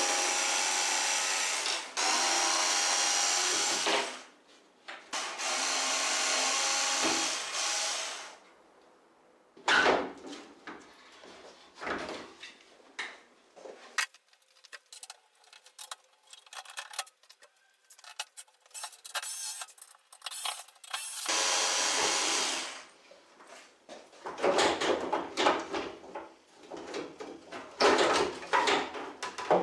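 Cordless electric screwdriver or drill running in short spurts of two to three seconds, backing out screws on a washing machine's front panel, with clicks and knocks of parts being handled between the runs.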